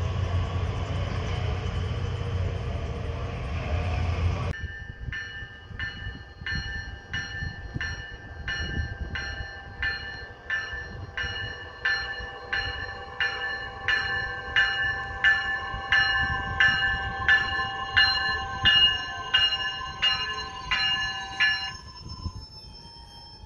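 A Metra Electric train running with a steady rumble, then, after an abrupt cut about four and a half seconds in, a bell striking steadily about one and a half times a second over a steady electric whine, growing louder and stopping near the end.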